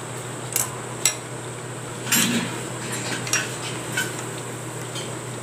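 A thin metal skewer clinks and scrapes against a nonstick frying pan while turning a murukku in hot oil: a run of sharp taps and one longer scrape about two seconds in, over a steady faint sizzle of the frying oil.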